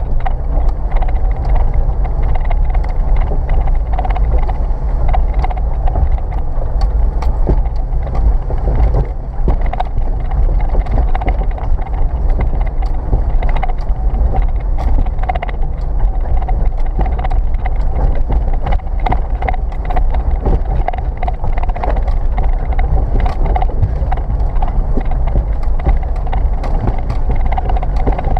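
First-generation Subaru Forester's flat-four engine running steadily under load as the car crawls up a steep rocky track, with a heavy low rumble and frequent knocks and clatter from the tyres and suspension working over rocks.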